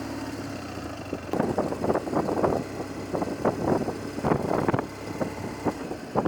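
Motorcycle engine running, broken from about a second in by a run of loud, irregular bursts as the bike gets under way.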